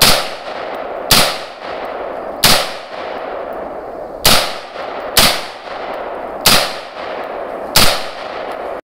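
AR-15 rifle fired in seven single shots at uneven intervals of one to two seconds, each shot sharp and loud with a brief ring-off. A steady hiss sits between the shots, and the sound cuts off abruptly near the end.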